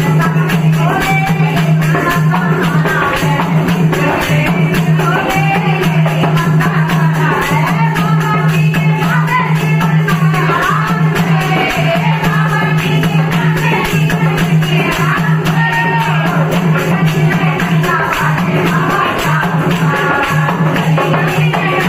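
A group of women singing a Hindi devotional bhajan in chorus, accompanied by a dholak hand drum and rhythmic hand clapping, without a break.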